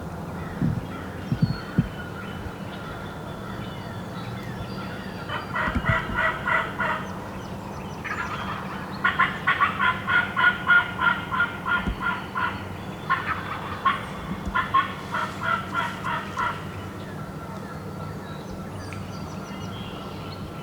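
Turkey calling: three runs of rapid, repeated notes, a few seconds each, with a few low knocks in the first two seconds.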